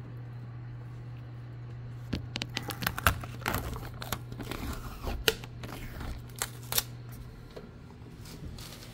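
Handling noises in a kitchen: a run of sharp clicks, taps and crinkling starts about two seconds in, over a steady low hum.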